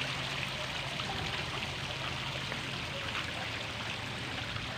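Steady, even rushing noise of outdoor background sound, with no distinct events.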